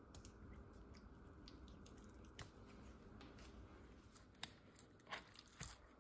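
Faint wet squishing and small clicks of hands rubbing mayonnaise onto raw beef fillets, a little more often near the end, over a low steady room hum.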